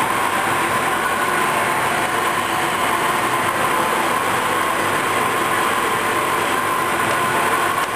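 A machine running steadily: an even rushing mechanical noise with a constant whine, no change in speed.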